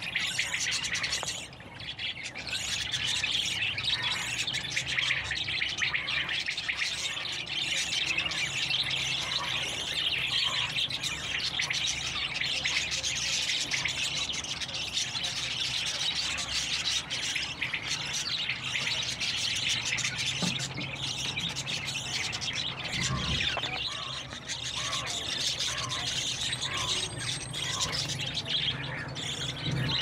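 A crowd of small caged birds, budgerigars among them, chirping and chattering without a break, with a steady low hum underneath.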